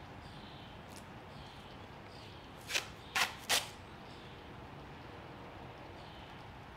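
Masking tape pulled off the roll in three quick short rips about three seconds in, over a faint steady background hiss.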